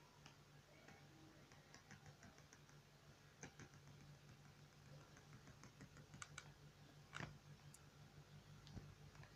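Near silence: a few faint, irregular clicks of a computer keyboard and mouse over a low steady hum.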